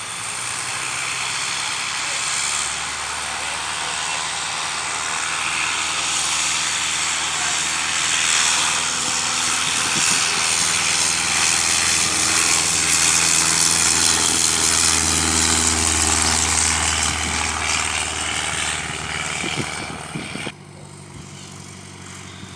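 Light propeller airplane's piston engine running at high power, growing louder to a peak around the middle and then easing off. The sound cuts off suddenly near the end.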